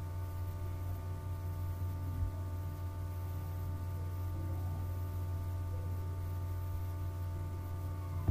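Steady electrical hum on the recording: a low drone with several thin, steady higher tones above it, and a faint click about two seconds in.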